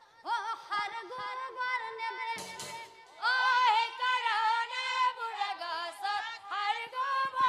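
A woman singing an Assamese Nagara Naam devotional song over a steady held note, with a short noisy burst about two and a half seconds in.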